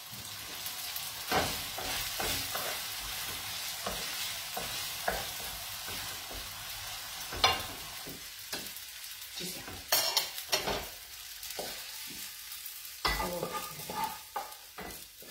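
Spaghetti frying and sizzling in an aluminium pan while a wooden spoon stirs and scrapes through it, with scattered sharp knocks of the spoon against the pan. Near the end the pasta is scraped out of the pan onto a plate.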